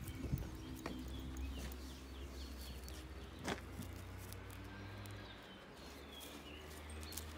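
Faint outdoor ambience: small birds chirping in the background, with a few light clicks and one sharper click about three and a half seconds in.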